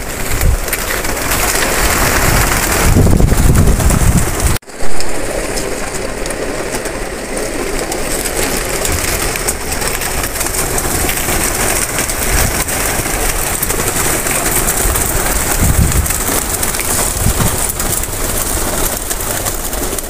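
A large flock of domestic pigeons cooing together, over a dense rush of flapping wings as many fly about. The sound breaks off for an instant about four and a half seconds in, followed by a loud bump.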